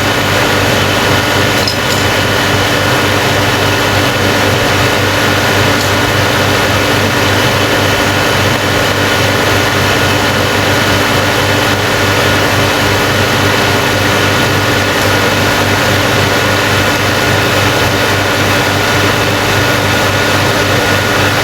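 Factory machinery running steadily: a loud, even mechanical din with a constant low hum and several steady higher tones, unchanging throughout.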